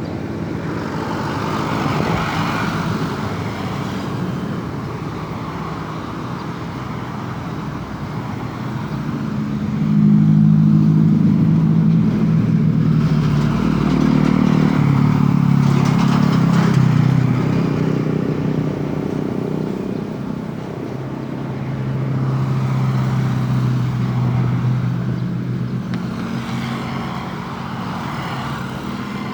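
Road traffic: vehicles passing one after another, with a deep engine note swelling to its loudest through the middle and a steadier low engine note later on.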